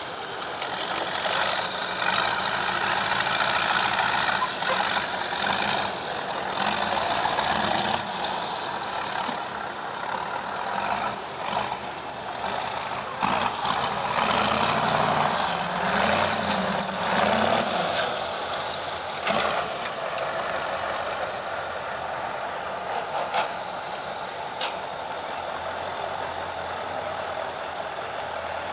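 Off-road trial truck's diesel engine working hard through a competition section, its revs rising and falling, with a noisy hiss mixed in.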